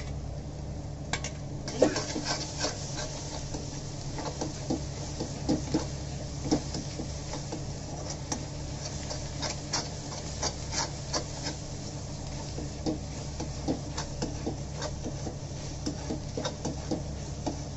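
Perforated metal spatula stirring and scraping thick masala around a metal kadhai, with irregular clinks and scrapes against the pan. A steady low hum runs underneath.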